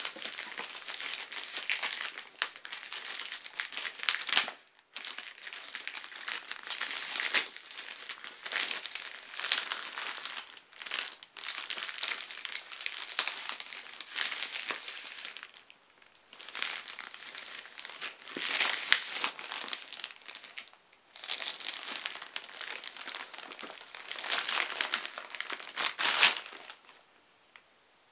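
Plastic parcel packaging, a poly mailer bag and the plastic bag inside it, crinkling and rustling as it is opened and handled. It comes in irregular bursts with brief pauses and stops near the end.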